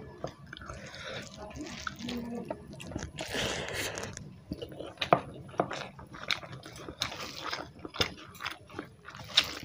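Rice and fish curry being mixed and squeezed by hand on a steel plate, a wet squishing, together with mouth sounds of eating by hand: chewing and lip smacks, with many short sharp clicks.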